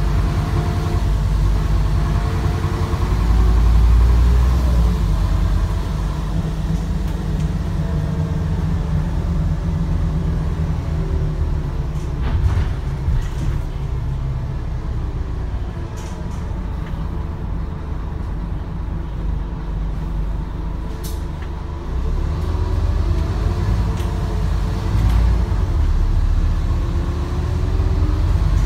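Scania N230UD double-decker bus running along, its engine note rising and falling through the gears, easing off mid-way and pulling again near the end. A few sharp clicks or rattles punctuate it.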